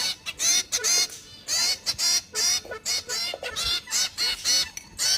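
Zebra finch calling: a quick run of short, repeated calls, about three a second.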